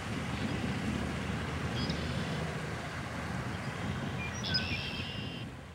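Wind rumbling on the microphone, with a red-winged blackbird calling: a short high note about two seconds in, then near the end its song of a couple of lower notes running into a buzzy trill about a second long.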